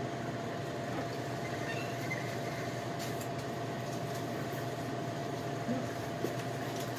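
Steady indoor store background hum: a constant mid-pitched tone over a low drone, with a few faint clicks and knocks.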